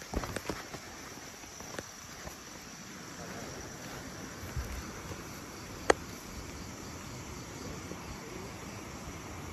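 Crickets and other night insects chirring steadily in a high, even chorus. A few sharp clicks and knocks come in the first second, a dull thud about four and a half seconds in, and one loud sharp click about six seconds in.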